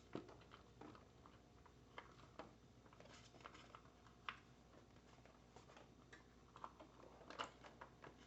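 Near silence with a few faint, scattered clicks and taps of small parts and tools being handled.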